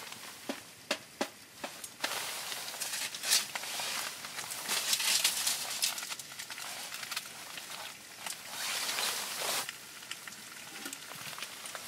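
A spoon clicking and scraping in a frying pan of pasta, with the rustle of a winter jacket as the arms move. A few sharp clicks in the first second or so, then bouts of scraping and rustling.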